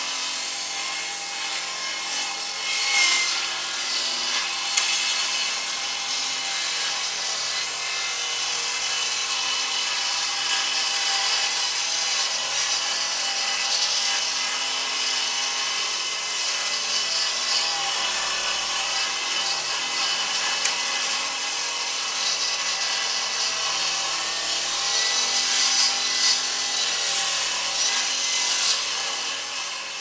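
Circular saw running through a continuous cut: a steady, hissy whine, with brief louder moments about three seconds in and again near the end.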